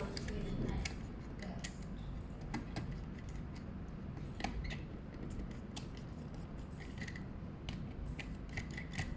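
Irregular light clicks and snaps of small plastic parts from a Phomemo D30 mini label printer being handled.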